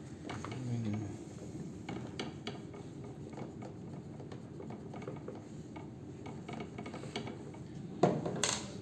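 A small drawing tool scratching, rubbing and tapping lightly on a wooden icon board as a point is marked on the drawing. A brief, louder rustling knock comes near the end.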